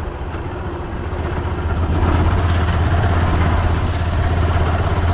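Motorcycle engine running steadily while riding, getting louder about two seconds in.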